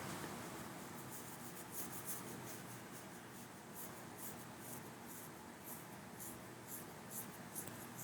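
Faint, irregular scratching sounds, about two a second, over low room noise.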